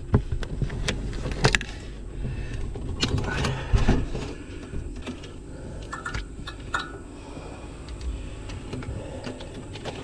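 Nylon trimmer cord being fed down a refrigerator's plastic defrost drain by hand: scattered scrapes, clicks and rustles of the cord and fingers against the plastic drain opening and the wire shelf, over a steady low hum.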